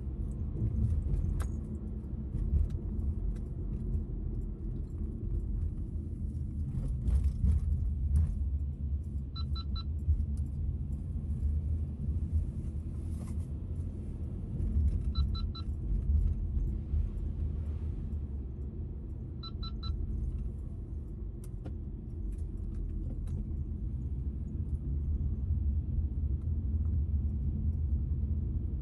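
Car driving uphill, a steady low rumble of road and engine noise heard from inside the cabin, with light rattles. Three short double beeps from an electronic device sound in the middle.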